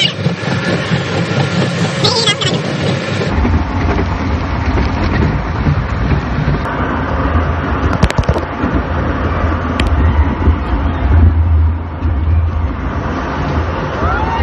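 Steady rumble and clatter of a log flume ride in motion, with a few sharp clicks around the middle.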